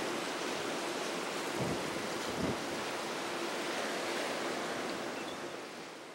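Wind and choppy open water: a steady rushing noise with a faint steady hum under it and a couple of brief low thumps early on. The sound fades out over the last second or so.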